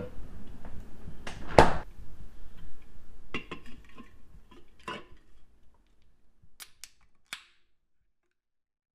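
Aluminium energy drink cans being handled in a kitchen and set down on a countertop: one loud knock about a second and a half in, then a scatter of lighter clicks and taps, with a few sharp clicks near the end before the sound cuts off suddenly.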